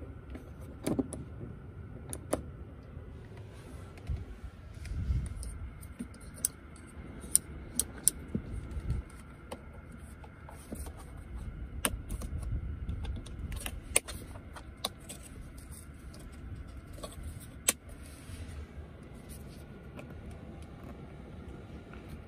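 Scattered sharp plastic clicks and taps from hands working a Kia Stinger's cabin fittings (dome light, 12V socket cover, seat-back button), over a low rumble of handling.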